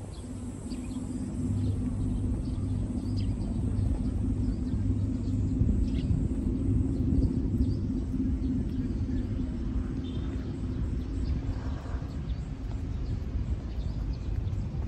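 A steady low mechanical drone at a constant pitch, swelling over the first couple of seconds and then holding, with faint short chirps above it.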